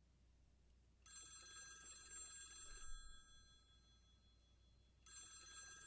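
Telephone ringing twice: a steady ring of high tones lasting about two seconds starting a second in, a pause of about two seconds, then a second ring starting near the end.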